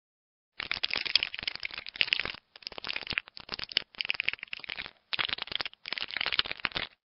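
A crackling, clicking sound effect, dense and scratchy, in five bursts with short breaks, that starts and stops abruptly.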